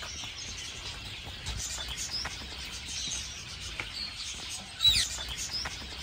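Many small aviary birds chirping and twittering together in quick, overlapping short calls, with one louder sweeping call about five seconds in.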